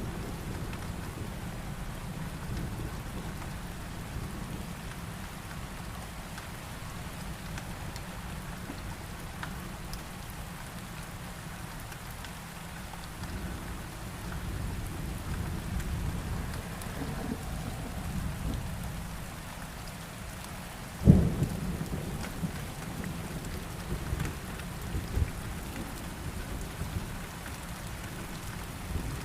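Heavy rain falling steadily, with a low rumble of thunder under it. About two-thirds of the way through comes one sharp, loud thunderclap, followed by a couple of smaller cracks.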